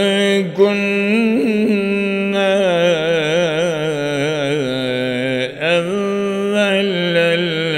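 A man's voice reciting the Quran in a chanted, melodic style, drawing a phrase out at length with wavering ornaments in pitch. There is a short break about five and a half seconds in before the chant carries on.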